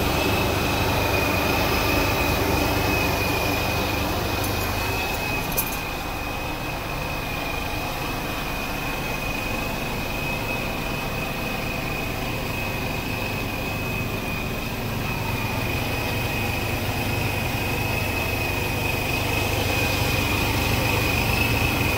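Scania R410 tractor unit's inline-six diesel idling steadily, heard from inside the cab, with a constant high-pitched whine over the low engine hum. One small click about six seconds in.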